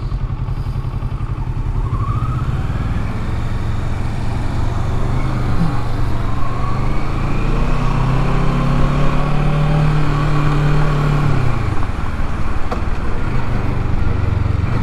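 Motorcycle engine running under way. Its pitch rises as it picks up speed, holds steady, then falls away about eleven seconds in.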